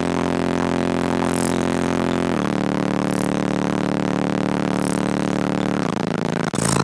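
Car audio system of eight Sundown Audio SA-12 subwoofers playing bass-heavy music loud inside the car: long held deep bass notes that shift to a new pitch every few seconds. The sound cuts out for a moment near the end, then resumes.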